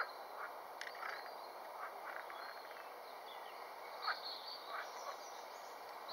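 Frogs calling: a steady croaking chorus with short single croaks standing out every second or so, the loudest about four seconds in. Small birds chirp faintly in the background.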